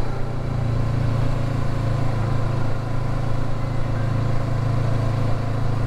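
Motorcycle engine running at a steady cruise while riding, a constant low drone heard from on the bike.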